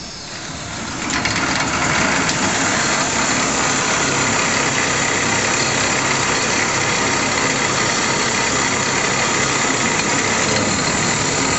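Powermatic 45 wood lathe's 3/4 hp three-phase motor spinning up over the first second or two, then running steadily at low speed. The drive belt flops at low speed, which the seller takes for a worn belt that should be a little wider.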